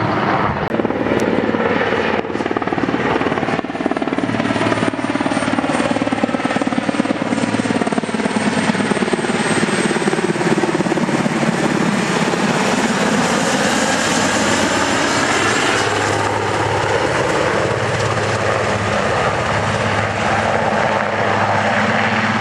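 Airbus (Eurocopter) AS-332B Super Puma helicopter flying low close by: a loud, steady rotor beat with the whine of its twin turboshaft engines, the pitch sagging and rising as it moves around before it settles into a hover.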